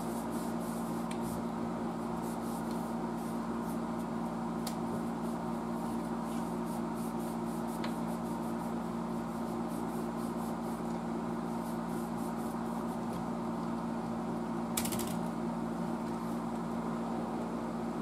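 A rag dampened with dry cleaning fluid rubbing over the front panel of a vintage Triplett tube tester in soft, irregular wiping strokes, over a steady low hum. A brief hiss comes about fifteen seconds in.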